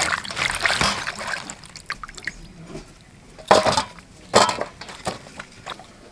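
Water sloshing and splashing as cauliflower florets are rubbed clean by hand in a steel bowl of water, settling after about a second and a half into faint dripping. Past the middle come two sharp knocks about a second apart as washed florets are set out on a steel plate.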